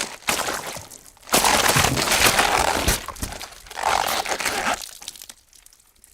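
Gory sound effect of crunching and cracking, in a short burst and then a longer stretch that fades away near the end.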